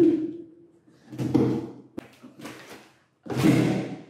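A knife sawing through packing tape and scraping along a cardboard box in about three rough strokes, with a sharp click between them; the last stroke, near the end, is the loudest.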